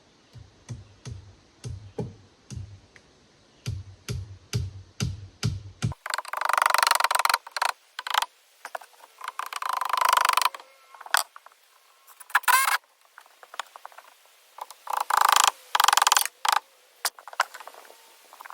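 Hammer driving nails into wooden framing: about a dozen sharp strikes in two quick runs. After an abrupt cut about six seconds in, several loud, harsh, noisy bursts follow, some lasting a few seconds.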